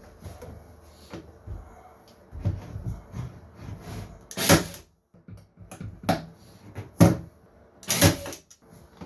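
Handling noise of parts being set in place: soft rustling and low thuds, then four sharp clacks, roughly one a second, in the second half.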